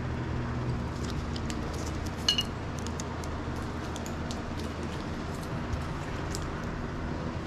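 Baseball bats clicking and knocking lightly against each other as they are handled, with one sharper ringing clink about two seconds in, over a steady low hum.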